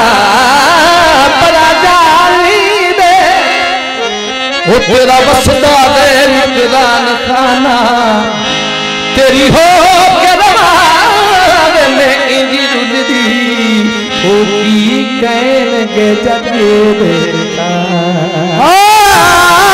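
A man sings a Punjabi folk song into a microphone, amplified, in long wavering ornamented lines over musical accompaniment.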